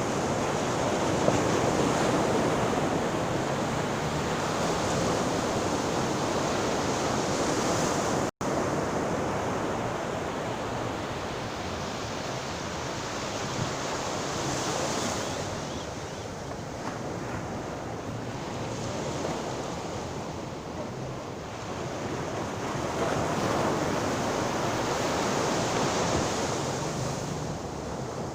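Ocean surf: waves breaking and washing in, the rush swelling and easing in slow surges, with a brief break in the sound about eight seconds in.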